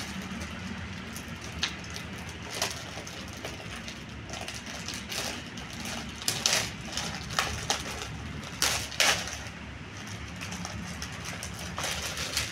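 Packaging being handled during an unboxing: short rustles and crinkles, a handful of them, loudest around six and nine seconds in, over a steady low hum.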